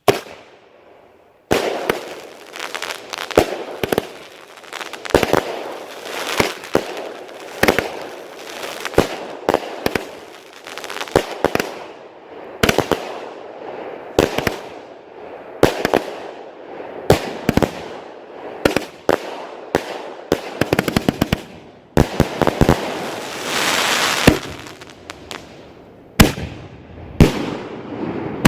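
Svea Ragnarök consumer firework battery firing: a pop at the start, then a long run of sharp bangs, several a second, with crackle between them and a denser stretch of crackling about three quarters of the way through.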